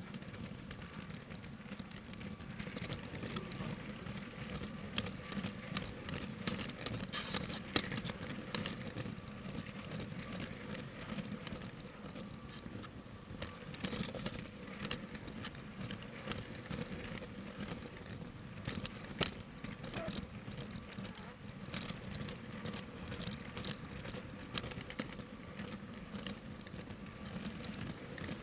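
Battery-powered LEGO train running on plastic track, heard close up from on board: a steady motor hum under a constant patter of small clicks and rattles from the wheels and cars on the track, with a few sharper clicks.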